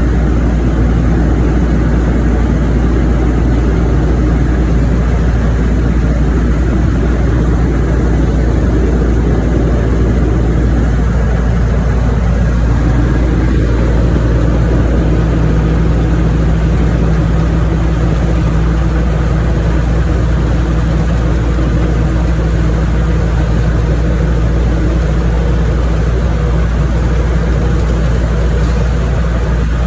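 An engine running steadily at a constant speed, a loud unbroken drone.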